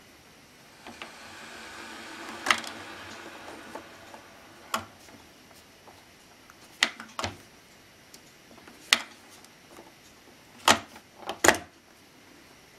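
A series of sharp plastic clicks and clacks, some in quick pairs, from the lid of a Braun Tassimo coffee machine being opened and handled. A soft rushing noise swells and fades in the first few seconds.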